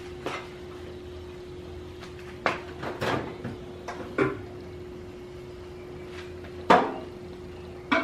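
Objects being handled and set down: about eight separate sharp knocks and clicks, the loudest about two-thirds of the way in, over a steady hum.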